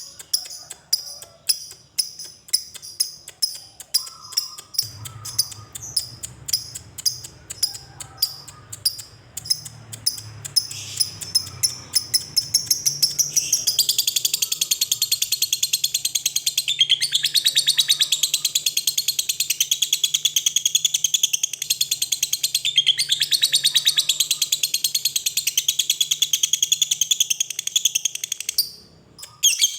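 Lovebird calling: sharp high chirps about two to three a second that quicken, then about halfway through break into a long unbroken rapid chatter, the 'ngekek panjang' trill, which stops abruptly near the end.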